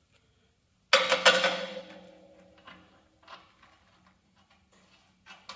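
Steel parts of a Cub Cadet plow blade clanking together: a sharp clatter of several quick metal hits about a second in, then the steel rings and fades over a few seconds. A few lighter metal clicks follow.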